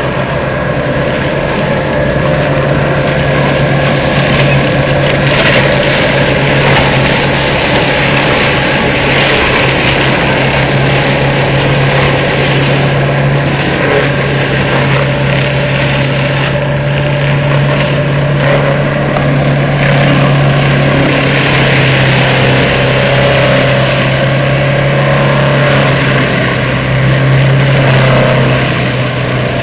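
ASV RC100 tracked skid steer running steadily under load, driving a Seppi MiniForst hydraulic mulcher: a constant low engine drone under a broad rushing noise that swells and eases slightly.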